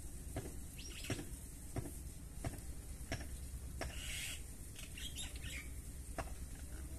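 Sharp ticks of unknown source come at a steady pace, about one every two-thirds of a second, for the first four seconds, then one more near the end. Faint bird chirps sound in the background.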